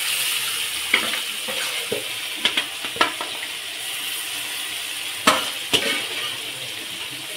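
Chicken pieces frying in hot oil in a pan, with a steady sizzle and a few sharp clinks of a utensil against the pan.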